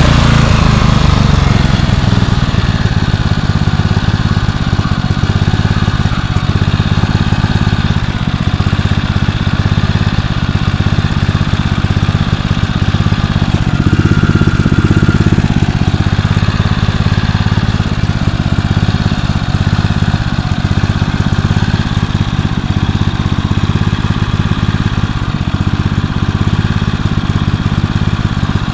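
Generac 4000-watt portable generator engine running steadily at an even speed.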